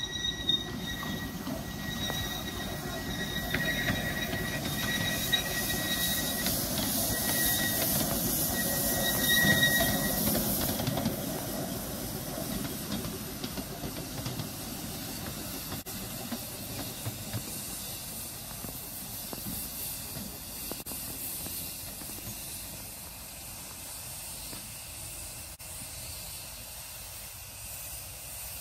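Small 15-inch gauge steam locomotive running slowly past, its wheels squealing on the rails with a steady high tone for the first ten seconds or so, and steam hissing. After about eleven seconds the squeal and hiss stop, leaving a quieter steady rumble as it moves away.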